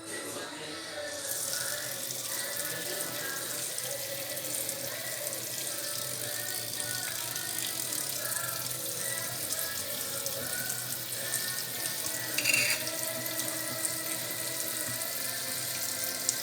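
Tap water running steadily from a faucet fitted with a faucet-mounted water purifier, starting about a second in. There is a short louder surge around twelve seconds in.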